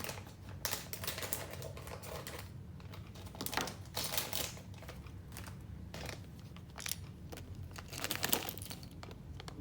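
A Lego minifigure blind bag being handled and opened: irregular light clicks of small plastic pieces with bits of packet rustling.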